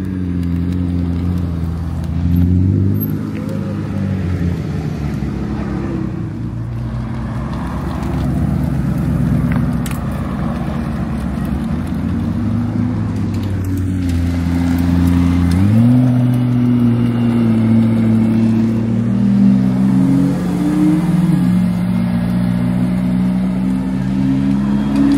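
Supercar engines running at low revs as the cars roll slowly past one after another, a deep steady drone whose pitch steps up with light throttle a couple of times and drops back near the end.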